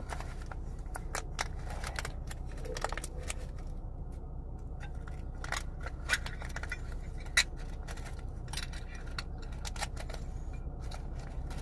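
Small plastic objects being handled: irregular light clicks and taps, with the loudest snap a little past the middle, over a steady low hum.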